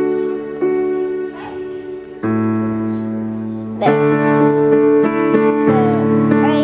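Piano played with both hands in sustained chords, the whole chord changing every second or two.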